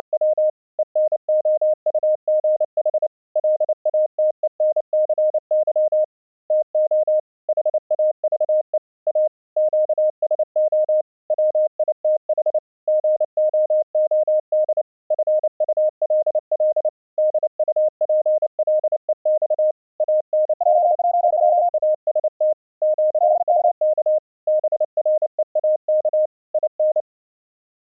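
High-speed Morse code: a single mid-pitched sidetone keyed very rapidly in dots and dashes, with short pauses between words. Twice, about two-thirds of the way through, a second, slightly higher tone briefly sounds over it.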